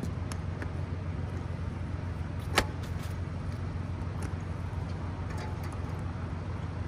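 Light clicks and one sharp click about two and a half seconds in from the motorcycle's hard trunk being unlocked and handled, over a steady low hum.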